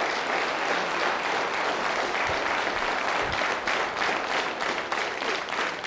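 Studio audience applauding: many hands clapping at once in a steady, even round of applause.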